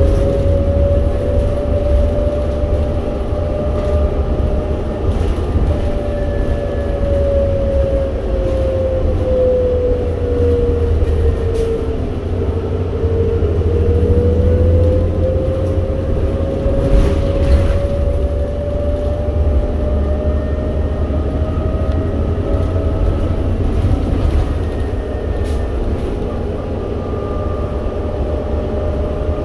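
Inside a 2008 New Flyer C40LFR natural-gas transit bus under way: a steady low engine and road rumble, with a drivetrain whine that drops in pitch as the bus slows for about twelve seconds, then climbs again as it speeds back up.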